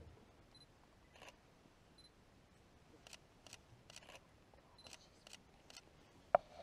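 Quiet scene broken by faint, irregular clicks and ticks, about a dozen, with a sharper click near the end. Three brief, faint high peeps come in between.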